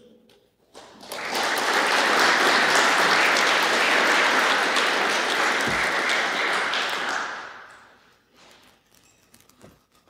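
Audience applauding: clapping that swells up about a second in, holds steady for about six seconds, then dies away.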